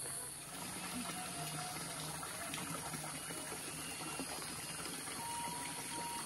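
Running water: a steady, even rush of flowing water, with a few faint high tones over it.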